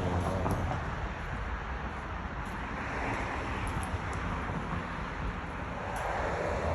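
Steady outdoor background noise, a low rumble with an even hiss above it and no distinct event.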